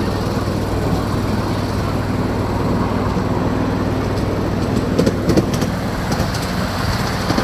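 Small tourist toy train running along its track, heard from on board: a steady rumble with a few sharp knocks about five seconds in.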